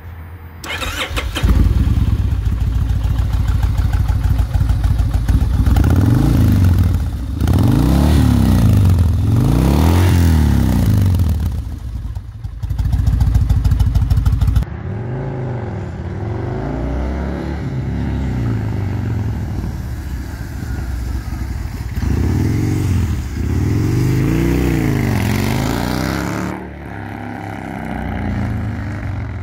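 2005 Kawasaki Vulcan 1600's V-twin through a Vance & Hines dual exhaust, starting about a second in and settling to idle, then blipped again and again, the pitch rising and falling with each blip. In the second half the bike is ridden, revving up and down, and its sound drops away near the end as it moves off.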